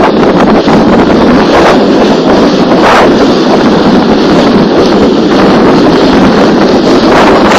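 Plastic hip sled sliding fast over snow, a loud steady scraping hiss mixed with wind rushing over the microphone.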